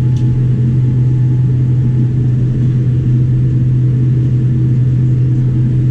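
Steady cabin drone inside a Boeing 787-9 on the ground, a loud, even, low hum with no change.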